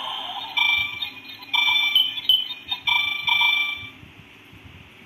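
Built-in sound effect of a Shinkalion toy station playset, played through its small speaker: the tail of a steady electronic tone gives way to a run of beeping electronic tones with short gaps, which stop about four seconds in. The reviewer takes it to be the station's maintenance-mode sound.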